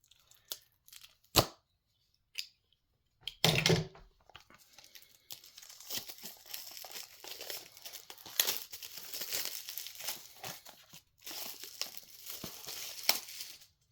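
Shrink wrap being torn and crumpled off a new Blu-ray case: a sharp click, then a short rip, then several seconds of continuous crinkling and tearing with a brief pause near the end.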